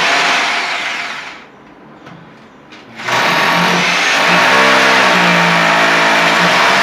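Electric drill running, winding down about a second in, then switched on again about three seconds in and running steadily.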